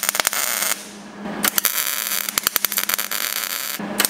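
MIG welder tack-welding a stainless steel exhaust elbow to a V-band flange, crackling and spitting in bursts as the arc is struck and released: a short burst ending under a second in, a longer one from about a second and a half until near the end, and another starting right after.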